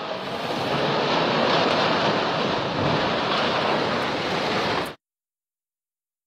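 Rockfall crashing down a cliff face: a continuous rushing din that cuts off suddenly about five seconds in.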